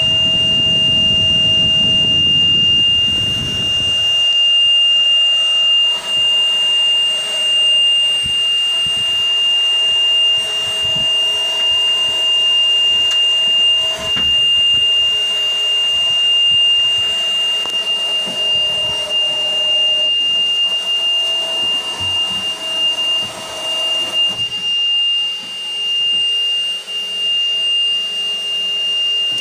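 A fire truck's cab warning buzzer sounding one continuous high-pitched tone. A low rushing sound lies under it for the first four seconds or so.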